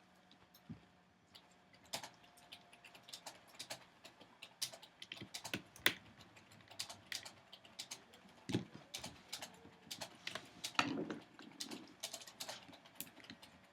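Faint, irregular small clicks and taps of a screwdriver driving two small screws into a laptop's plastic screen bezel, along with light handling of the plastic.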